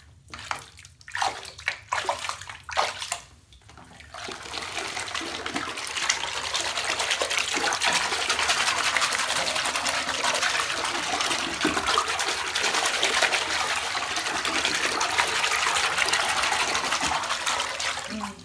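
Bathwater being swished and churned by hand in a tub to mix it and raise bubbles: a few separate swishes at first, then about four seconds in a steady, continuous sloshing that runs until it stops just at the end.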